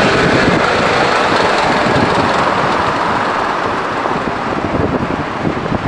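Loud rushing road and traffic noise heard from a moving car, which swells at the start and slowly fades.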